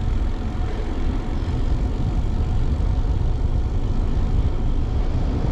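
Wind rushing and buffeting over a GoPro's microphone as a bicycle coasts fast downhill, a steady loud low rumble with no break.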